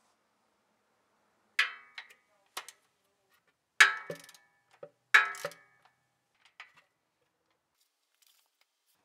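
Metal clanks from a socket ratchet worked on an engine sump bolt: several sharp metallic knocks that ring briefly, three loud ones over about four seconds with lighter taps between.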